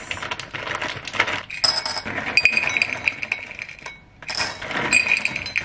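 Dark chocolate chips pouring from a foil bag into a stainless steel measuring cup: a dense rattle of small clinks, with the foil bag crinkling. There is a brief pause about four seconds in, then the pouring starts again.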